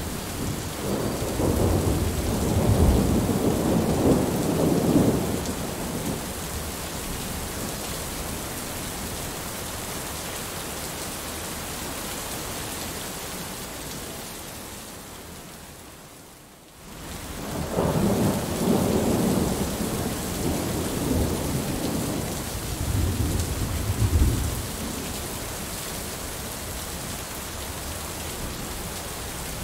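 Heavy rain falling steadily through a thunderstorm, with two long rolls of deep thunder: one in the first few seconds and one starting just past the middle. Between the rolls the sound fades briefly to a lull, then comes straight back.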